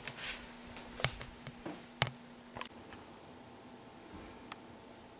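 Nerf Retaliator foam-dart blaster being handled and fired: a scatter of sharp plastic clicks and clacks, the loudest about one and two seconds in. A faint steady hum stops about two and a half seconds in.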